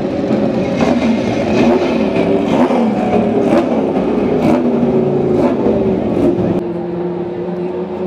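Ferrari V12 Formula One engine revved repeatedly while standing still, the throttle blipped about once a second so the pitch climbs and falls back each time. About six and a half seconds in, the sound changes abruptly to a steadier engine note.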